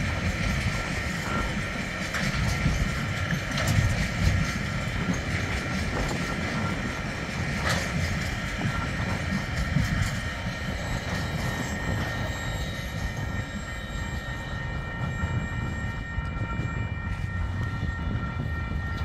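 Freight wagons of an intermodal train rolling past: a continuous low rumble of wheels on rail with clicks and knocks over the joints, sharpest about four and eight seconds in. A steady high-pitched ringing tone runs underneath.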